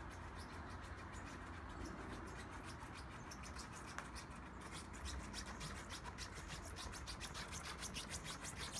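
Pug puppy scratching with its claws at rubber wellington boots: a rapid run of light scratches that comes more thickly in the second half.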